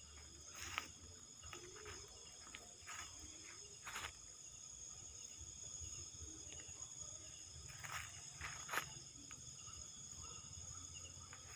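Faint, steady chorus of night insects with several high, even tones, broken by a handful of short crunches of footsteps on dry leaf litter, the clearest about a second in, at four seconds, and two or three near eight to nine seconds.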